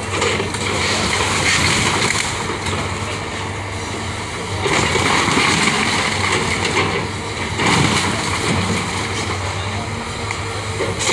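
Caterpillar hydraulic excavator's diesel engine running steadily while it tears down a wood-frame house, with crunching and clattering of breaking lumber and corrugated sheet metal. The crashing swells in loud stretches, most of all around the middle.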